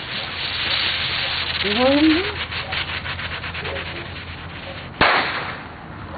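Ground bloom flower firework with report: a steady hiss of sparks with rapid crackling while it spins, then one sharp bang (the report) about five seconds in.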